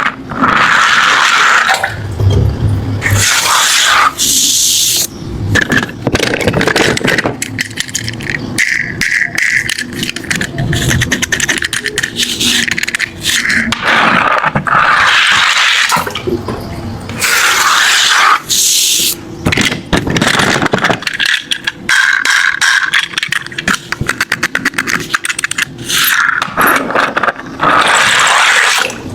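Die-cast toy cars rattling and scraping, a dense run of small clicks and clatter with louder bursts that come and go.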